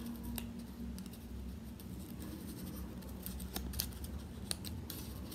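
Faint scratching and scattered small clicks of fingers handling and prying at the edge of a handmade cardboard yo-yo to open it, over a low steady hum.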